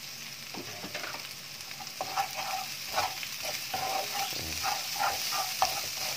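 Sliced shallots, garlic, chilies and lemongrass sizzling as they are stir-fried in a wok, with a wooden spatula stirring and scraping across the pan. The spatula strokes come more often and more loudly from about two seconds in.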